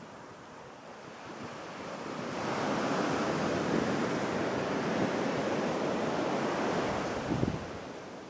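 Ocean surf breaking on a rocky shore: the rush of a wave swells from about two seconds in, holds for several seconds as it breaks and washes up, then fades away near the end.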